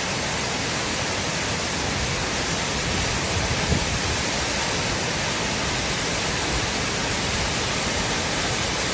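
Muddy flash-flood runoff pouring down a rocky cliff as a waterfall and rushing across a flooded road: a steady, unbroken rush of water.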